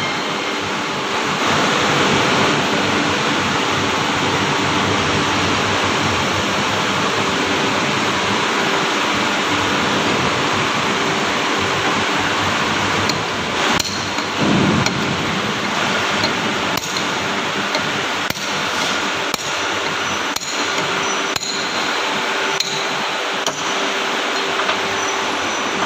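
Steady loud workshop noise, then from about halfway through a series of hammer blows on metal, roughly one a second, each with a slight ring.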